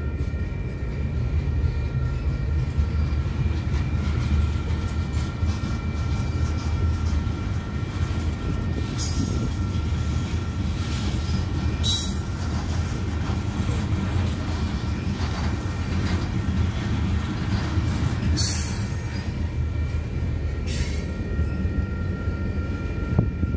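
Freight train of boxcars and covered hoppers rolling past a grade crossing: a steady, heavy rumble of steel wheels on rail, with a thin, steady high wheel squeal over it. A few brief sharp noises come about halfway through and again near the end.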